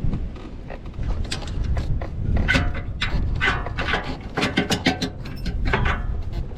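Hand ratchet wrench clicking in quick irregular runs, with light metal tool clatter, as a bolt on a BMW F10's rear suspension wishbone is worked loose.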